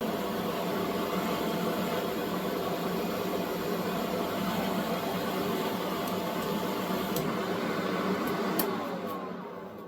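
Electric blower fan running steadily with a hum and whine, then switched off and winding down, its pitch falling, over the last second or so.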